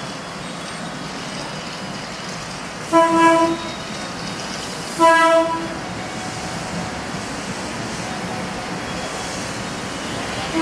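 Train horn sounding two short blasts about two seconds apart, over a steady rumble of railway noise.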